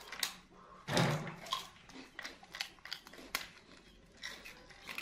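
Baby macaques and a kitten eating cake: scattered soft clicks and smacks of chewing. A louder rustling thump comes about a second in.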